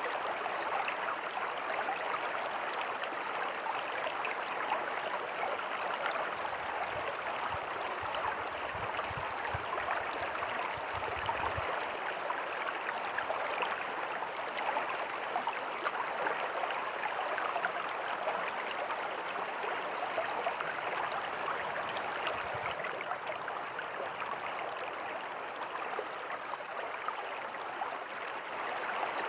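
Small creek with a tiny waterfall, water flowing and splashing steadily over rocks. A few faint low thuds come about a third of the way in.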